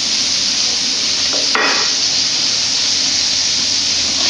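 Chopped vegetables searing in a hot skillet, a steady loud sizzle, with one brief click about a second and a half in.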